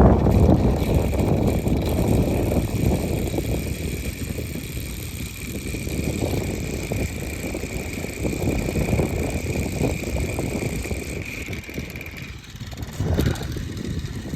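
Strong wind buffeting the microphone in gusts, a low rumble that is strongest at the start and eases about twelve seconds in. A steady high whine runs through it and stops about twelve seconds in.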